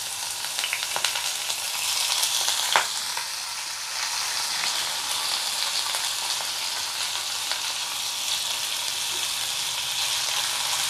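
Soaked, drained rice frying in hot ghee in a non-stick pan: a steady high sizzle with scattered small crackles, one sharp click about three seconds in, and a spatula stirring the rice near the end.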